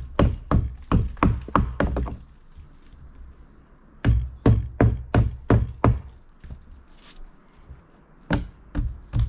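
Hammer blows on a wooden board, quick runs of about three strikes a second broken by two pauses of about two seconds.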